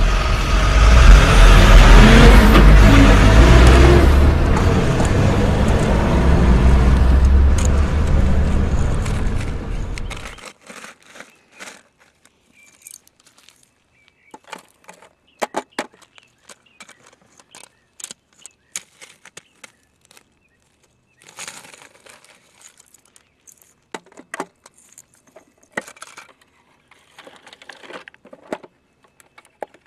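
Dump truck engine sound effect, a loud rumbling run with low throbbing, which cuts off abruptly about ten seconds in. After that come only scattered short clicks and scrapes.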